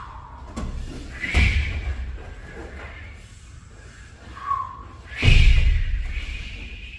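Two heavy thuds on a floor, about four seconds apart, from a performer's stamps or landings during a martial-arts form. Each has a deep low end and dies away over about a second.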